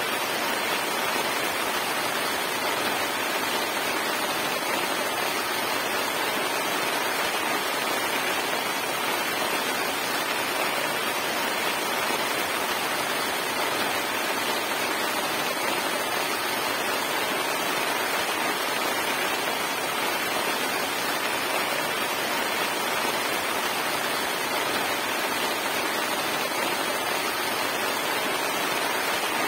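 Heavy rain falling steadily, an even unbroken hiss of downpour.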